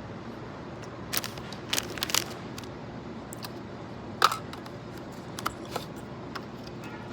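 A few sharp clicks and taps over a steady background hum, from handling snacks and their packaging; the loudest click comes about four seconds in.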